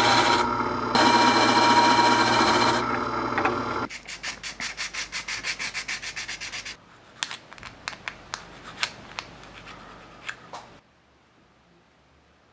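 Benchtop disc sander running, grinding the ends of a stack of thin wooden planks square against a miter gauge. At about four seconds it gives way to quick, rhythmic hand-sanding strokes, about five a second, then to scattered light scratches that stop near the end.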